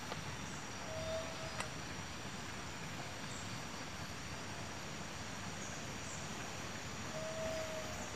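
Outdoor ambience by a ditch: a steady high insect drone over a low even rush of background noise, with two brief flat tones, one about a second in and one near the end, and a single faint click shortly after the first.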